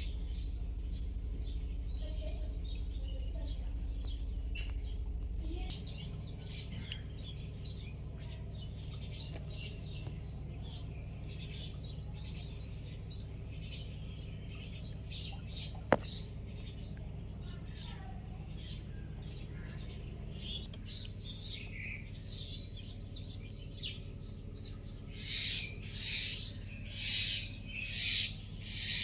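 Birds chirping, with a louder call repeated about once a second near the end, over a steady low hum. A single sharp click about sixteen seconds in.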